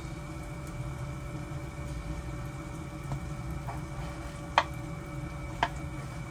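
Steady mechanical kitchen hum over a pot of soup simmering on a gas stove, with two light clicks about four and a half and five and a half seconds in as white miso is added from its tub.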